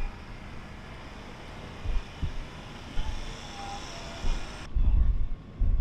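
A 5-inch FPV racing quadcopter in flight: a thin high whine from its motors over a steady rush of air, with low thuds of wind buffeting the microphone. The whine cuts off suddenly near the end, leaving heavy low wind thumps.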